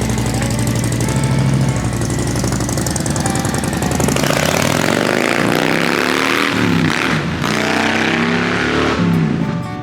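Harley-Davidson Low Rider S's Milwaukee-Eight 117 V-twin running through Cobra slip-on mufflers, running steadily at low speed for about four seconds, then pulling away with the pitch rising and falling through several gear changes.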